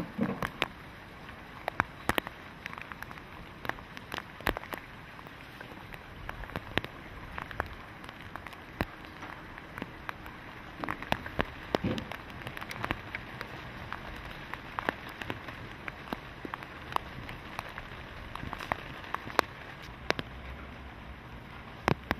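Rain falling: a steady hiss with irregular, sharp drips tapping on hard surfaces.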